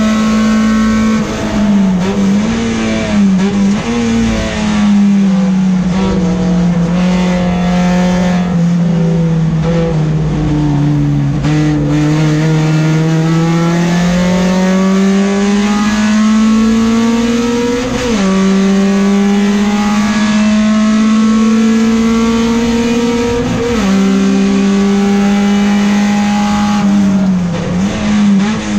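Peugeot 405 STi race car's engine heard from inside the cabin, running hard: the note sags slowly, then climbs through two upshifts, each a sudden drop in pitch followed by a fresh rise. Near the end the revs fall with quick blips, as on downshifts under braking.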